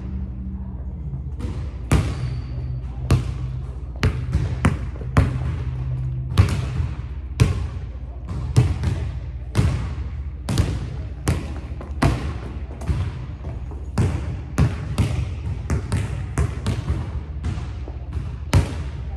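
Basketball dribbled on a hardwood gym floor, bouncing at about two bounces a second in an uneven rhythm, each bounce echoing in the large hall. A steady low hum runs underneath.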